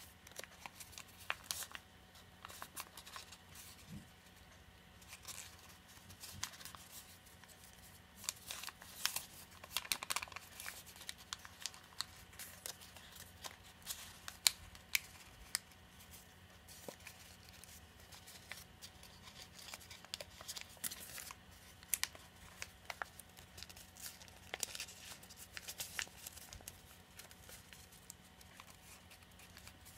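A sheet of origami paper crinkling and rustling as it is folded and creased by hand, with many small irregular crackles throughout.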